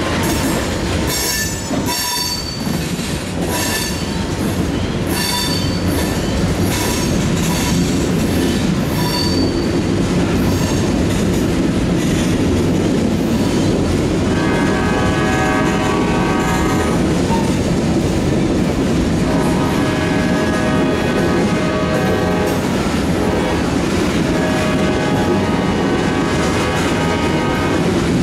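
Freight train of tank cars rolling past close by: a steady rumble with wheels clicking over rail joints about once a second in the first half. In the second half long, pitched multi-tone sounds come and go over the rumble.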